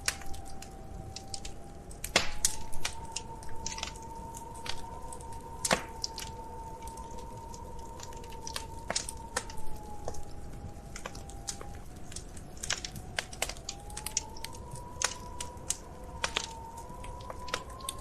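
Wood fire crackling, with irregular sharp pops and snaps, densest a couple of seconds in. A thin wavering whistle runs beneath them, breaks off about two-thirds of the way through, then comes back rising.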